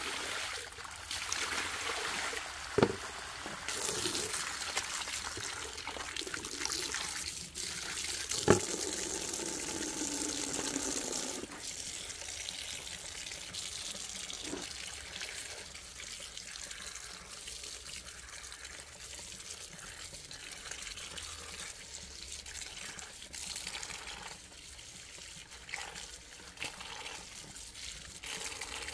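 Water running and trickling, heavier for several seconds early on and then gentler, with two sharp knocks about three and eight and a half seconds in.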